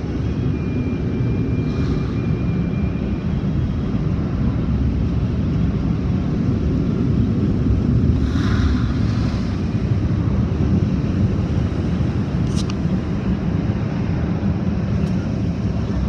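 Automatic car wash heard from inside the car: a loud, steady low rush of water jets and wash equipment on the car body. A brighter hiss rises briefly about halfway through, and there is a single sharp click later on.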